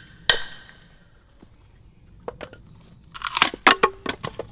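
A hammer strikes the spine of a froe once, just after the start, with a short metallic ring as it drives the blade into the wood. From a little past the midpoint comes a quick run of sharp wooden cracks and clatters as split shingle wood comes apart and knocks together.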